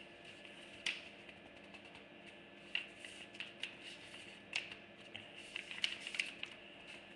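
Scattered light clicks and taps from a hand handling something close to the microphone, a few at a time, over a faint steady hum.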